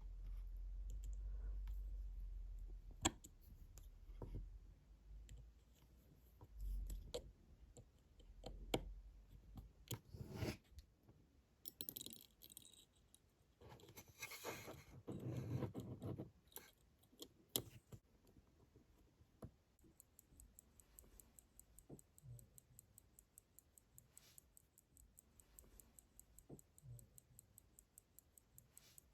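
Small sharp clicks and light handling noises, then from about twenty seconds in a faint, fast, even ticking: a restored vintage Waltham pocket watch movement running.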